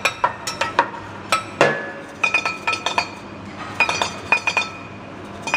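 A teppanyaki chef's metal spatula and knife clinking against a steel seasoning shaker, in quick runs of ringing taps several times over.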